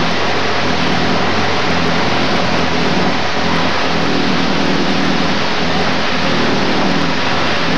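Long-tail canal boat's engine running under way, a low drone beneath a loud, steady rushing noise.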